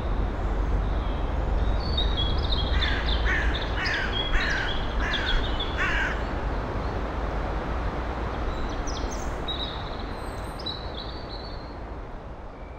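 Steady low background rumble, with a crow cawing five times in quick, even succession a few seconds in and a small bird chirping a little later. The whole sound fades out near the end.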